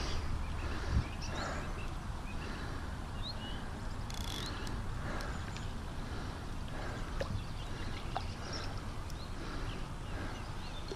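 Outdoor riverbank ambience: a steady low rumble with scattered short bird chirps and a single knock about a second in.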